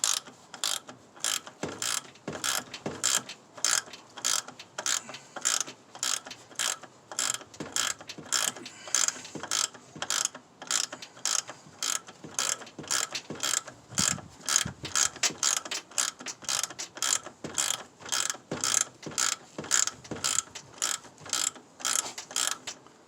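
Ratchet wrench being worked back and forth to run down a nut, its pawl clicking in an even rhythm of about two to three clicks a second.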